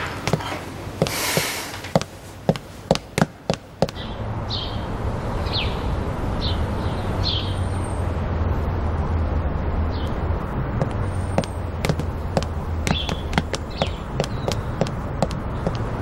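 A run of quick sharp taps, then a steady low hum with several short high chirps and more scattered taps.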